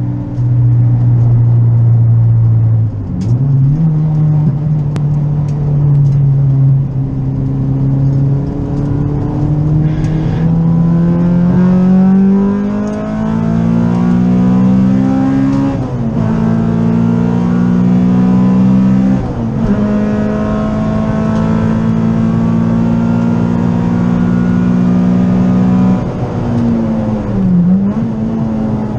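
Honda Civic EG's B18C Type R 1.8-litre VTEC four-cylinder engine running hard around a circuit, heard from inside the cabin. The pitch climbs steadily under load and dips briefly several times, about three, sixteen, nineteen and twenty-seven seconds in.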